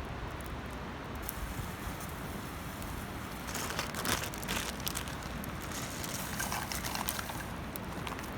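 Wood campfire burning with a steady hiss, with bursts of sharp crackles and pops about halfway through and again near the end.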